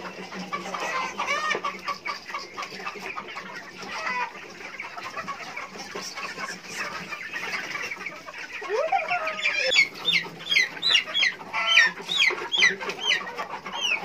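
A flock of young native-breed chickens clucking and calling, with the calls becoming louder and more frequent, a quick run of short high calls, in the last few seconds.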